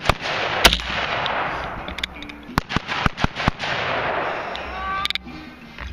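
AR-15 carbine shots fired in irregular strings, about nine in all: a pair near the start, a quick cluster of about five in the middle, and a double near the end, each cracking sharply with a short echo off the range.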